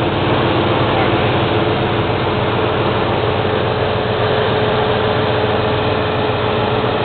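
Suburban engine idling, driving six belt-driven Leece-Neville alternators on a multi-alternator bracket: a steady whir of belts and pulleys with a constant whine that grows stronger about halfway through.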